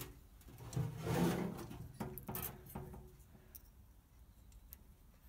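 Steel feeler gauge blades being handled and fanned out, giving a series of small light metal clicks while a blade is picked out to check a valve's rocker clearance. A brief low voice sound about a second in.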